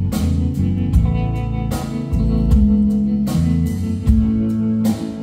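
Live rock band playing an instrumental passage between vocal lines: strummed acoustic and electric guitars over bass and drums, with a drum stroke landing about every 0.8 seconds.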